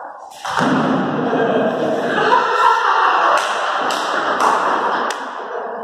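Several voices shouting together in an echoing, hard-walled hall. Several sharp knocks and thuds come through, mostly in the second half.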